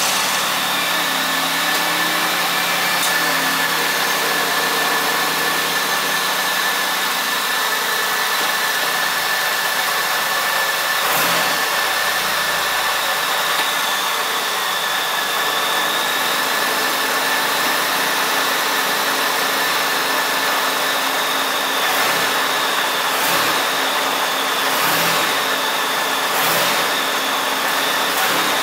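The supercharged 3800 Series II V6 of a 2001 Pontiac Bonneville SSEi idling steadily just after starting, its low note settling over the first few seconds. A steady high-pitched whine runs over the idle, with a few faint clicks in the second half.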